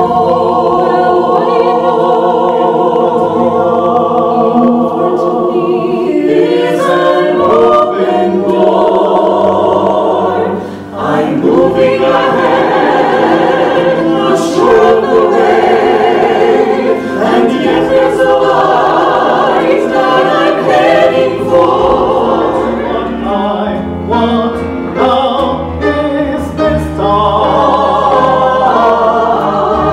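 A mixed cast of men's and women's voices singing a show tune together in harmony, accompanied by grand piano and upright double bass. The opening chords are held long; the music then moves more busily, and a low bass line stands out near the end.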